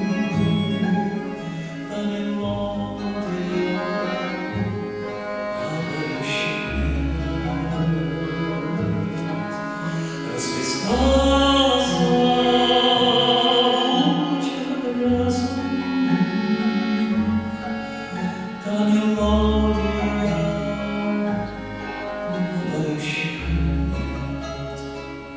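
A man singing a slow Russian song into a microphone, accompanied by classical guitar, plucked double bass and violin.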